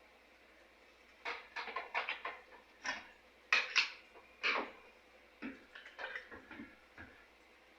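Irregular clicks and clattering of small metal and plastic parts and hand tools being handled during removal of an old recoil starter rope, in several quick clusters from about a second in until shortly before the end.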